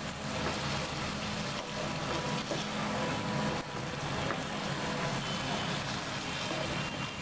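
A metal spoon scraping and scooping cooked greens and fish out of a non-stick frying pan. There are a few light scrapes over a steady background hum and hiss.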